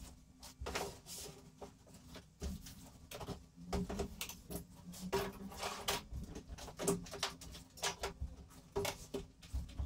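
Plastic tool cases and power tools being set down and slid onto plywood workbench shelves: an irregular run of clunks, knocks and scrapes.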